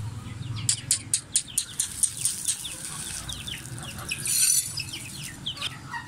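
Chicks peeping and chickens calling over a concrete floor as mixed grain is handled from a plastic bag, with a run of sharp ticks in the first couple of seconds. A louder burst of bird noise comes a little past four seconds in.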